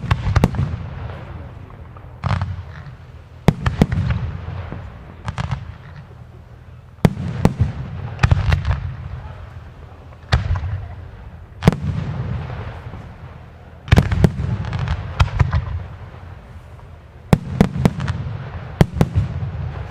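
Fireworks display: aerial shells and salutes bursting one after another with sharp bangs, some in quick clusters, every second or two. Each bang is followed by a low rumbling echo that dies away.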